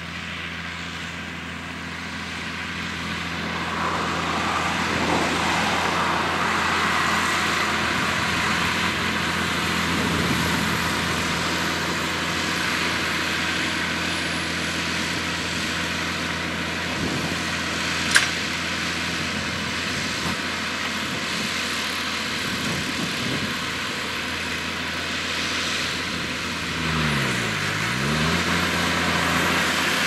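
Deutz-Fahr tractor engine running steadily under load while pulling a McHale F5500 round baler through straw, growing louder as it approaches. A single sharp click comes a little past the middle, and near the end the engine note dips briefly and comes back up.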